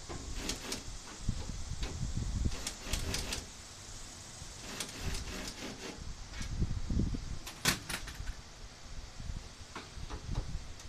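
Cordless drill driving grille screws into butterfly drywall anchors in short bursts, with rapid clicking from the drill's clutch and knocks of metal against the grille.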